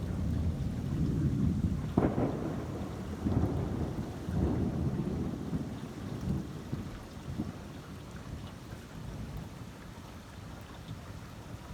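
Thunder rolling close by: a heavy low rumble with a sharp crack about two seconds in, a couple more peals over the next few seconds, then the rumble slowly dying away.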